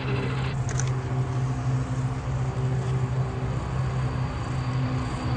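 Tupolev Tu-95MS bomber's four NK-12 turboprops with contra-rotating propellers, a steady low drone with a few held tones, as the aircraft comes in low on approach with its gear down.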